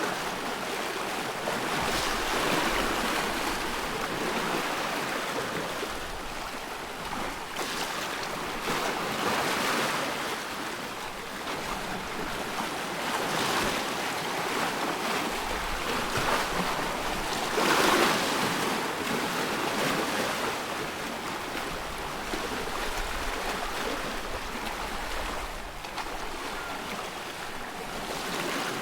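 Small waves on a loch washing and lapping, swelling and easing every few seconds, with gusts of wind buffeting the microphone.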